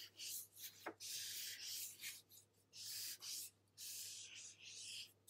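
Faint scratchy strokes of a water-based marker tip drawn across paper while outlining leaves, a run of short and longer strokes, with one small click about a second in.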